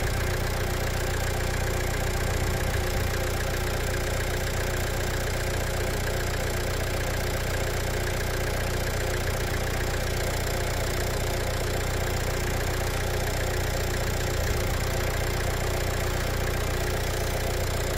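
Four-cylinder diesel engine idling steadily.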